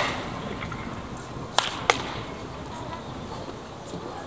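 Wooden baseball bat striking a pitched ball in batting practice: two sharp cracks close together about a second and a half in.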